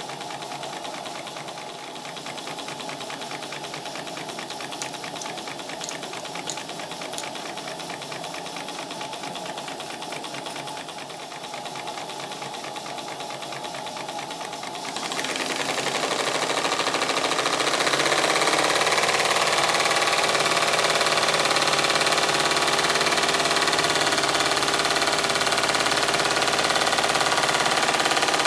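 Small model horizontal steam engine running on live steam, with fast, even exhaust beats and steam hissing from leaks, including holes in its gland chamber. About halfway through it gets louder and busier as it picks up speed.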